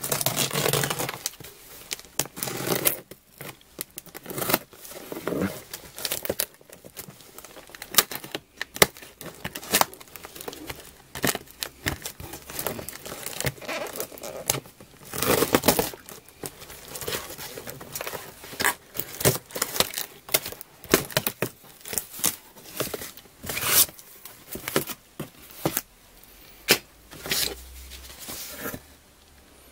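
Packing tape being cut and torn off a cardboard shipping box, with crinkling tape and cardboard flaps scraping and rustling as the box is opened, in irregular bursts.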